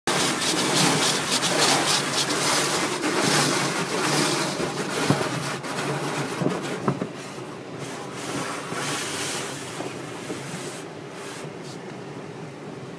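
Automatic car wash heard from inside the car: water spraying and scrubbing against the windshield and body. It is loud for about the first seven seconds, then dies down with one more brief loud rush.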